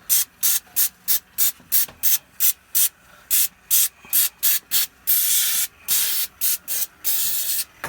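Aerosol can of silicone lubricant sprayed in many short hissing bursts, about three a second, with two longer sprays near the end. The spray is going onto the boot of the inner CV joint, to silence a whistle from the left wheel that the mechanic puts down to a ring inside that joint.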